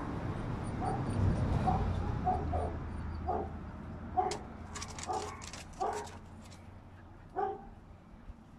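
A dog barking in short, high yips, about a dozen over several seconds, with a low rumble under the first few.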